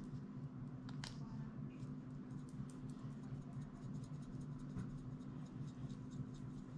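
Handheld black pepper grinder being worked over a bowl: a run of quick, dry little clicks, thickest from about two to four and a half seconds in, over a low steady hum.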